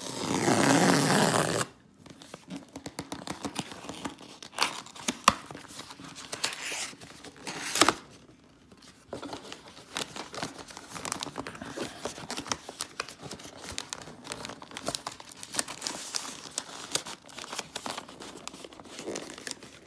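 A cardboard shipping box being torn open: a loud rip lasting about a second and a half at the start, then rustling, scraping and sharp knocks of cardboard and paper as an inner box is slid out.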